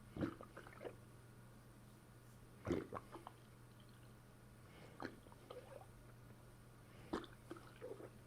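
Stomach and bowel gurgling as a fist presses down on the belly, coming in four short bubbling bursts about every two seconds.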